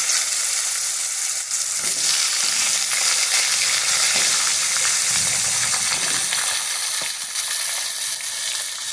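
Raw potato wedges freshly added to hot oil in a metal wok, sizzling with a steady loud hiss that eases slightly toward the end.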